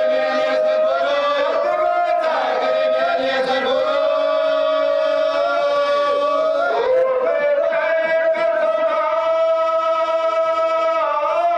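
Male voices chanting a marsiya, an Urdu elegy: a lead reciter at the microphone with a group of men singing along, in long held notes.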